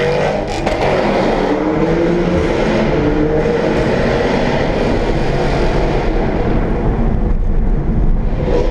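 A car engine accelerating hard, its pitch climbing around the start and then holding high, with a second rise near the end.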